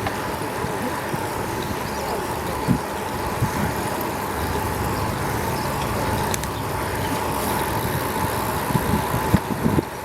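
Steady vehicle and road noise with a constant mid-pitched whine, starting and stopping abruptly.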